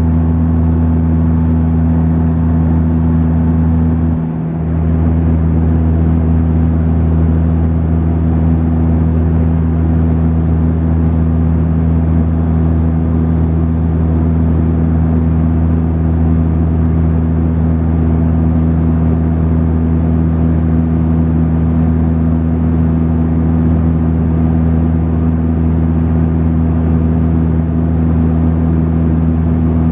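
Cabin drone of a Saab 340B's twin GE CT7 turboprop engines and propellers: a steady, loud hum of several low pitched tones over a rushing noise, with a brief dip in the low hum about four seconds in.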